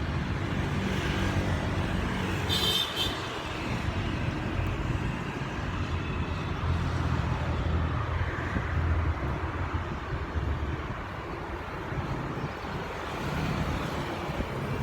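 Steady hum of passing road traffic, low rumbling that swells and fades as vehicles go by, with one brief high-pitched squeak about two and a half seconds in.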